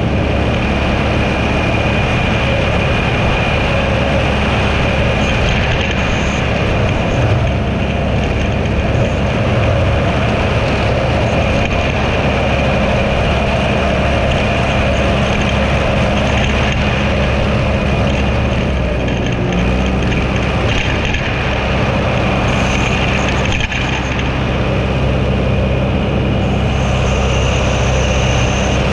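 Tractor engine running steadily while roadside mowing, a constant loud drone; its pitch shifts slightly about twenty seconds in.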